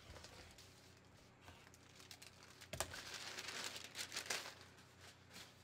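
Large sheets of dotted pattern-drafting paper rustling and crinkling as they are lifted and swept across a cutting table. The rustle swells about three seconds in, with a sharp crackle, then fades.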